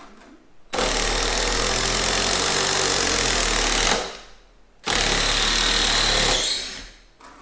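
Old single-speed DeWalt impact driver running loud at full speed, twice: once for about three seconds, then again for about a second and a half.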